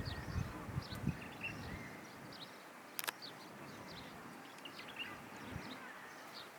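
Small birds chirping in the background: many short, high chirps scattered throughout, with a single sharp click about three seconds in.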